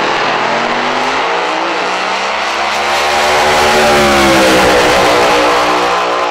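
Supercharged V8 drag racing Holden Commodore ute at full throttle on a quarter-mile pass, loud throughout. Its note dips once about two seconds in, then climbs and holds high. It stops abruptly at the very end.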